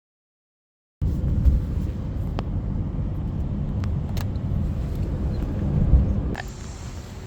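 A loud, steady low rumble with a few light clicks, starting abruptly about a second in and dropping to a quieter background near the end.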